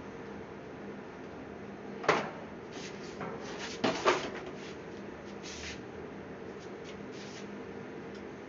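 A few sharp knocks and clicks, as of something being handled: one about two seconds in, two close together about four seconds in, and lighter rattles between, over a steady faint hum.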